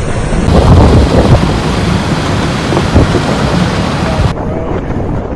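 Strong storm wind buffeting the microphone in gusts, with heavy low rumbles under a steady rushing hiss. The sound changes abruptly about half a second in and again a little after four seconds.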